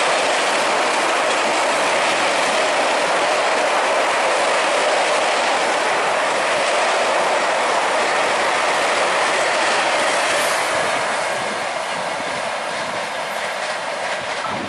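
Express train coaches passing close by at speed over a rail bridge: a steady loud rush and rattle of wheels on rail. It eases off somewhat about ten seconds in.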